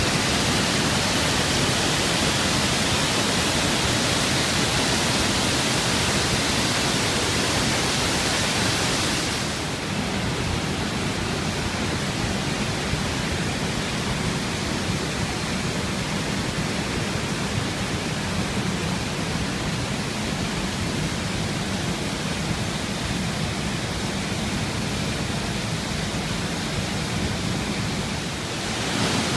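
Steady rush of whitewater pouring over waterfalls and rapids. About nine seconds in it turns duller and less hissy, and it brightens again near the end.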